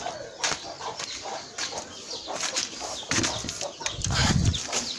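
Flock of hens and chicks clucking and cheeping while they feed, with many quick taps and scuffles. A brief flurry of wing flapping comes about four seconds in.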